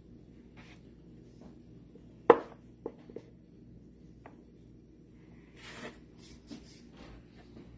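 Soft rubbing and light tapping of gnocchi dough being rolled across a wooden gnocchi board on a floured wooden pastry board, with one sharp knock about two seconds in, a few small clicks after it, and a brief rub near six seconds.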